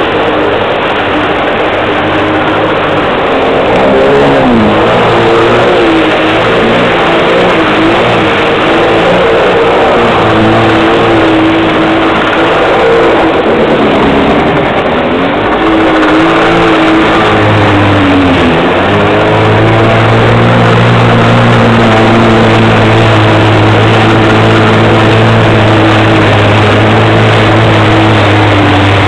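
Yamaha SuperJet stand-up jet ski engine running under way. Its pitch dips and rises several times as the throttle is eased and opened, then holds steady at speed in the second half, over the rush of spray and wind.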